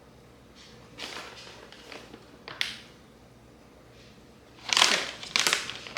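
Crinkling and crunching in a few short bursts, loudest about five seconds in: walnuts and their packaging being handled to top brownie batter.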